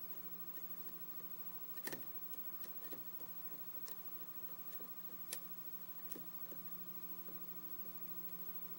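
Lock pick working the pins of a 5-pin Schlage pin-tumbler lock held in a false set: scattered small metallic clicks, the sharpest about two seconds in and again past five seconds, over a steady low electrical hum.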